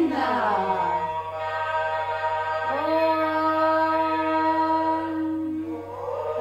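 A voice chanting a devotional Hindu hymn in a slow, melodic style, with gliding pitch and long held notes, one held for about three seconds in the middle.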